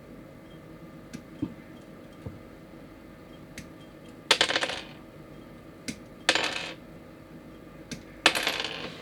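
Small plastic model-kit parts clattering onto a hard surface in three short rattles about two seconds apart. Sharp single clicks come between them, like sprue nippers snipping parts off the runner.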